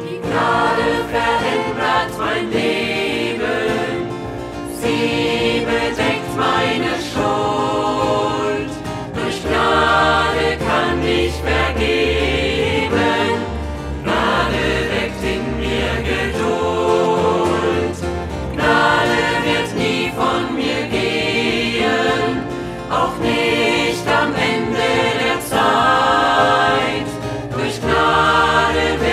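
Choir singing a German Christian song over a band accompaniment with bass and a steady beat.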